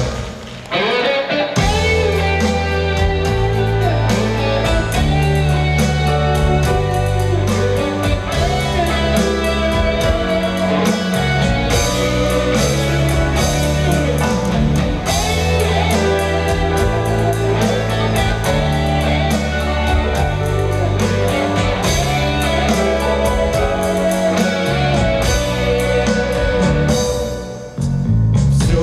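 Live band playing an instrumental intro: acoustic and electric guitars over drums and low bass notes, with a steady beat. The band comes in about a second and a half in and drops back briefly near the end.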